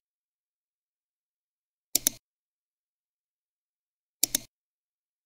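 Computer mouse clicked twice, about two seconds apart, each a sharp press-and-release pair of clicks.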